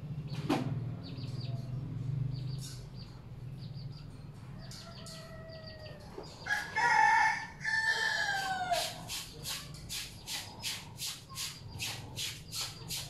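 A rooster crows once about halfway through, a long call that falls in pitch at the end. It is followed by a steady rhythm of short scrubbing strokes, about two and a half a second, from clothes being hand-washed in a plastic basin.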